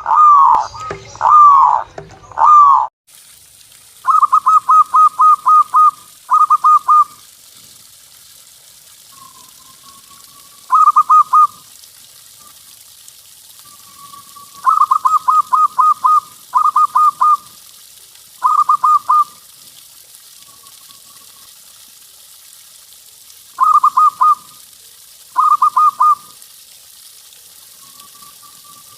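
Zebra dove (perkutut) singing: phrases of rapid staccato cooing notes repeated every few seconds, with soft single coos between them, over a steady hiss. The first three seconds hold three loud swooping calls before the recording changes.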